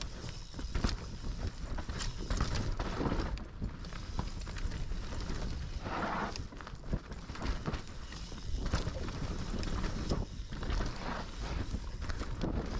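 Mountain bike riding down a dirt forest trail: tyres rumbling over the ground, with frequent knocks and rattles from the bike as it runs over bumps and roots.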